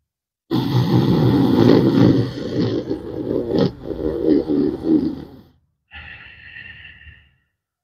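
Ujjayi pranayama breathing: a long, loud inhalation through a narrowed throat with a snore-like rasp lasting about five seconds, with a short sharp click partway through, followed by a shorter, softer breath. The throat vibration is meant to loosen congested phlegm.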